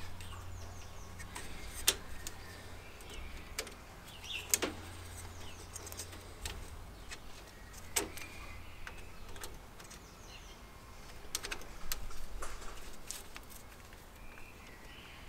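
Scattered light clicks and taps of a small screwdriver on the screws and plastic parts of a garden-railway track switch, a few sharp ones standing out. Birds chirp faintly in the background.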